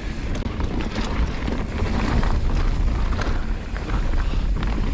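Wind buffeting the microphone and the rattle of a mountain bike riding fast down a rough dirt trail, with scattered knocks and clatters as the wheels hit bumps.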